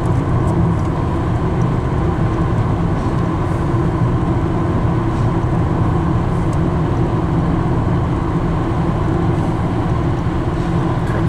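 Steady road noise from inside a car driving at highway speed: an unbroken low drone of tyres and engine.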